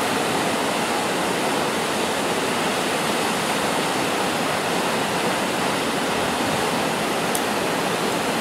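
Steady, even rushing noise with no rise or fall, and one faint click near the end.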